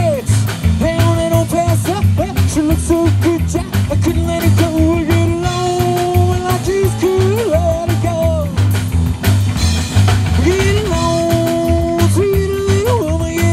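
Live rock and roll band playing an instrumental break: electric guitar lead with held, bending notes over slapped upright bass and drums.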